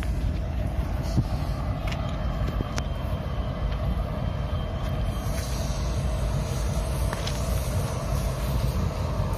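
Diesel-electric locomotives idling in a yard: a steady low rumble with an even hum above it and a few faint clicks.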